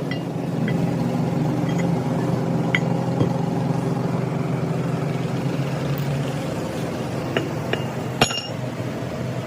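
A steady mechanical drone with a few sharp metallic clinks, the loudest near the end.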